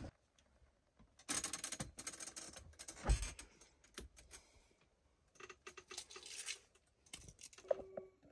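Faint scratching and rustling in several short spells, with a soft thump about three seconds in.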